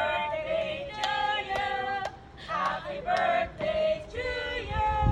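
A group of people singing together, with women's voices to the fore, holding long notes phrase by phrase.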